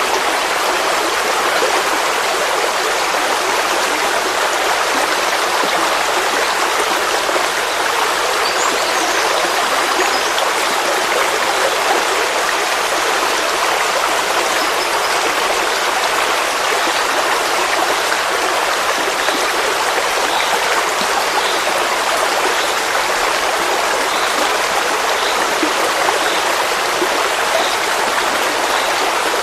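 A forest stream flowing steadily: a continuous, even rush of water. A few faint high chirps sound about nine seconds in.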